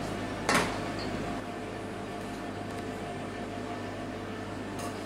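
Steady hum of kitchen machinery with a faint steady whine, broken by a short sharp noise about half a second in and another at the very end.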